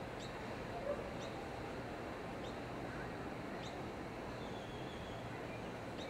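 Steady outdoor hiss with a small bird repeating a short, high chirp that drops in pitch about once a second. There is a single brief tap about a second in.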